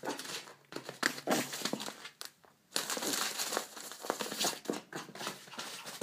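Newspaper flyers crinkling and rustling in irregular bursts as a teacup Yorkie scrambles over them, with a short lull a little past two seconds in.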